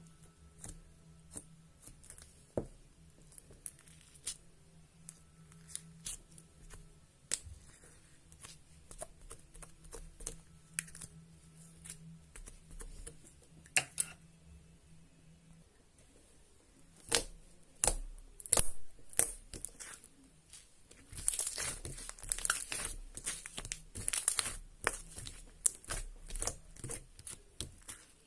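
Hands playing with a glitter slime: scattered sticky clicks and pops, getting busier about halfway through and turning into dense crackling and squelching near the end.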